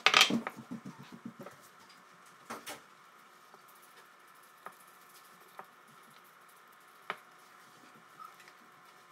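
Red rubber spatula folding pancake batter in a mixing bowl: soft wet scraping with a few light taps against the bowl. A short loud noise comes right at the start, followed by a quick run of soft ticks.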